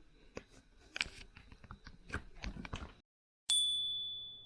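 A run of small clicks and taps from handling a small device, then a short dead gap. About three and a half seconds in comes a single clear ding that rings out and fades.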